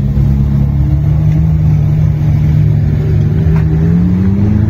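Ferrari sports cars, a 458 Spider and an 812 Superfast, driving slowly past at low revs with a steady engine note that rises in pitch near the end as one is revved.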